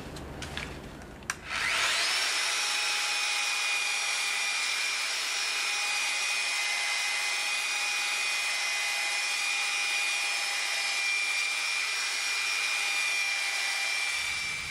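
Hand-held electric woodworking power tool shaping a hardwood block. After a click about a second in, it starts up and runs steadily with a constant whine over a rasping hiss, then stops near the end.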